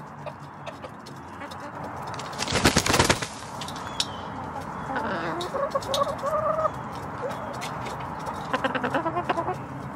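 Hens clucking while they peck at food in a metal pan, many quick sharp pecking clicks. A short loud clatter comes about two and a half seconds in, and a drawn-out hen call about halfway through.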